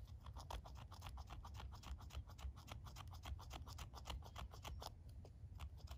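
The spine of a knife blade scraping a chunk of chaga fungus in quick repeated strokes, rasping it into fine tinder powder.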